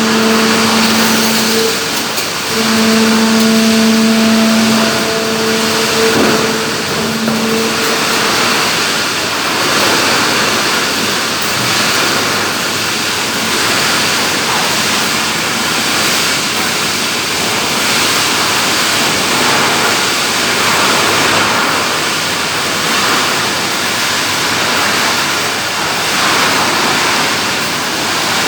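A 16x16 baler running, a loud, continuous mechanical rush and clatter. A steady hum sounds over it for about the first eight seconds, breaking off briefly a few times.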